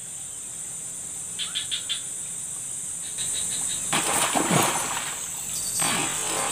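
Insects buzz steadily with short bursts of rapid chirping. About four seconds in, a louder rushing splash sets in as a giant snakehead (toman) strikes and thrashes at a surface lure.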